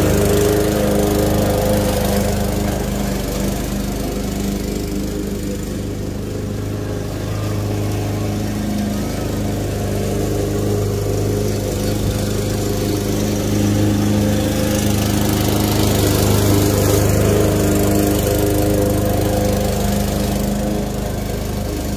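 Craftsman walk-behind gas lawn mower running steadily as it is pushed through long grass. Its hum fades a little as it moves away, then grows louder in the second half as it comes back close.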